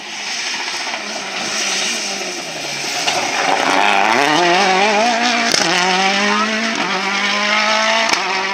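Rally car engine lifting off as it brakes into a gravel corner, its note falling, then revving hard and climbing as it accelerates away, with a few sharp cracks at the gear changes.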